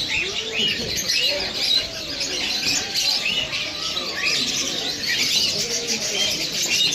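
Many birds chirping at once: a busy, continuous chorus of short, quick chirps that rise and fall, with lower calls underneath.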